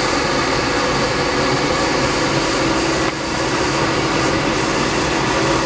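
Steady rush of air streaming past a glider's cockpit canopy in flight, with a faint steady hum beneath it.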